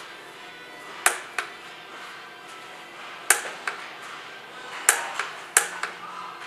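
Socket wrench on a long extension clicking as a spin-on aircraft oil filter is tightened to torque: sharp metallic clicks, mostly in pairs, every second or two.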